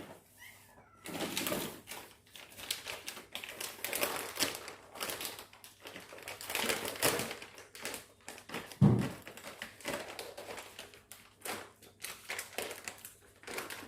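Irregular clicking, tapping and rustling of cat-food bowls and packaging being handled while a meal is set out for cats, with a low thump about nine seconds in.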